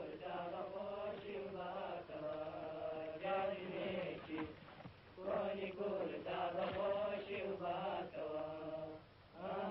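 Voice singing a chant in long held notes, with a short break about five seconds in.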